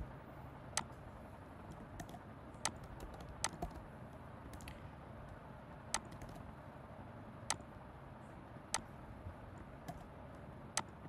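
Scattered single keystrokes on a computer keyboard, irregular and a second or two apart, with a few quicker clusters.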